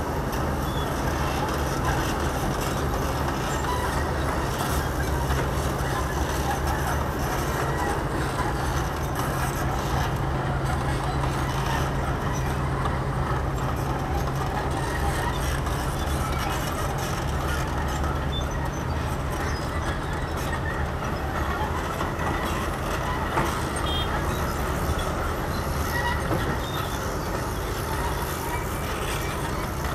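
Heavy diesel engines of a Komatsu PC210 crawler excavator and a crawler bulldozer working, a steady low drone.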